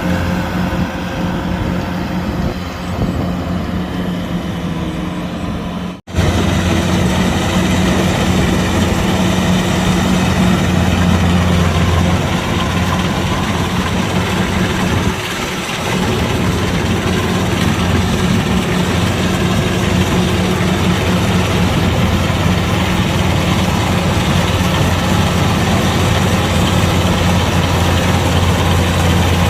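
Kubota DC-105X combine harvester's diesel engine running steadily with a low, even hum. It cuts out sharply for an instant about six seconds in, then comes back louder.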